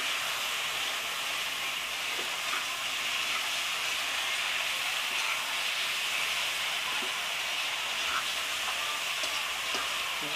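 Long beans and tomatoes sizzling as they stir-fry in an aluminium wok, a steady hiss with a few faint clicks from the stirring.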